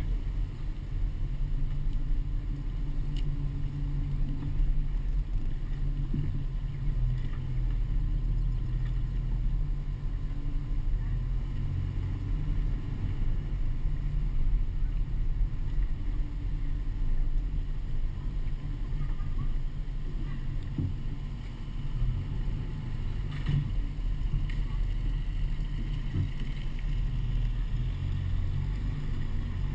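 Pickup truck driving slowly, heard as a steady low engine and road rumble through a camera mounted on the outside of the truck, with wind buffeting the microphone.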